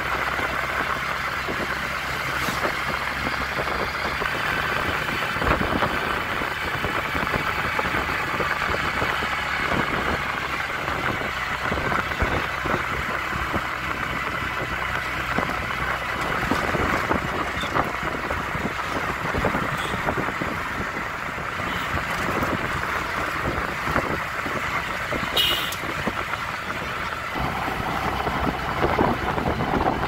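Ride in a three-wheeler auto-rickshaw: its small engine runs steadily under road and wind noise, with frequent small knocks and rattles from the body over the road.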